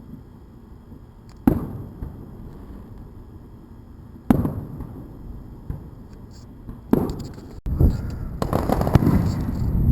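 Aerial fireworks going off: three single booms a few seconds apart, then a rapid string of bangs and crackling near the end.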